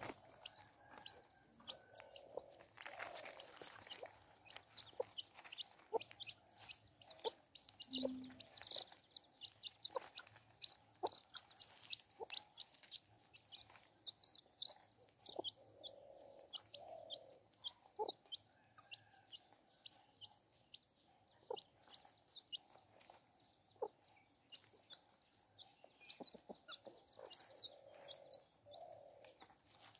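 Domestic chicks peeping without pause, many short high chirps each second, while the mother hen clucks low now and then.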